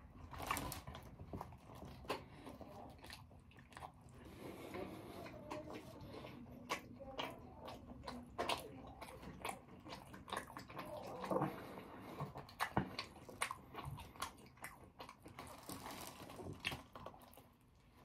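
Close-up chewing and biting of a meatball marinara sub sandwich, with irregular wet mouth clicks throughout.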